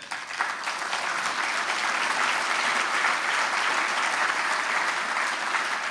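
Audience applauding: the clapping starts at once, builds over about a second and then holds steady.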